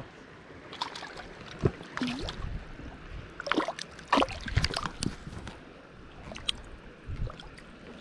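Small rainbow trout thrashing at the surface of a shallow stream as it is drawn in on the line and grabbed by hand, giving a handful of irregular splashes over the steady rush of the flowing water.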